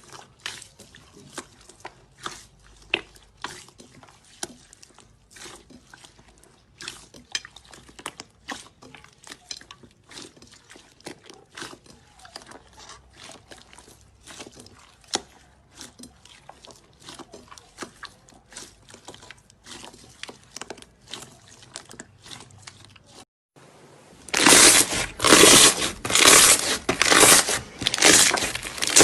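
Slime being squeezed and poked by hand, giving many small sticky clicks and pops. After a brief gap near the end, a much louder, dense crackling and crunching takes over.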